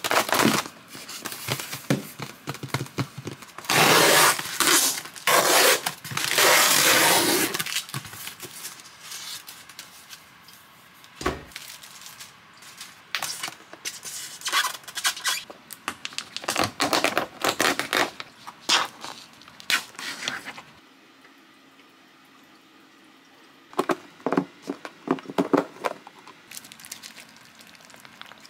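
A styrofoam shipping box and plastic-sealed kimchi packs being handled and unpacked: foam scraping and plastic rustling and tearing, loudest in two long stretches in the first eight seconds, with a single sharp knock about eleven seconds in and scattered clicks and rustles after it. A short run of rustling comes near the end.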